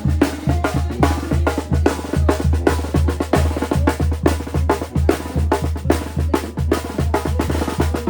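Banda music with a steady, driving beat: bass drum and snare strikes over a low brass bass line.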